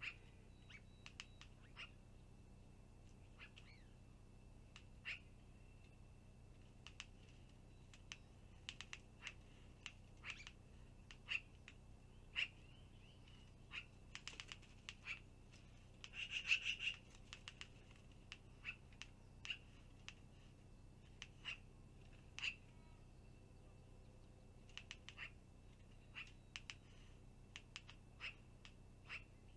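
Scattered short, sharp bird calls and clicks from a long-eared owl and a black-billed magpie squaring off at the owl's nest, with a denser, louder burst of calls about sixteen seconds in. A faint steady high tone runs underneath.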